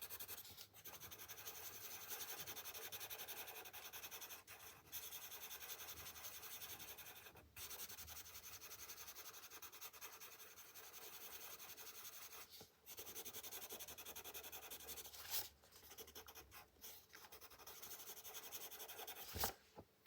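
Blending pencil rubbing on paper in quick back-and-forth strokes, mushing colored-pencil layers together. It pauses briefly a few times, and there is a sharp click near the end.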